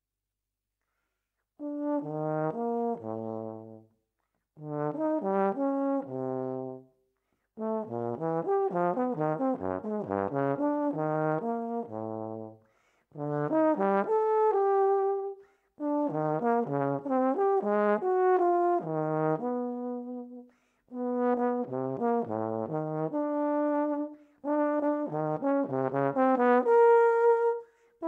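Solo euphonium playing an unaccompanied piece: fast runs of notes leaping between the low and middle-upper register, in seven short phrases broken by brief pauses for breath. It starts after about a second and a half of silence.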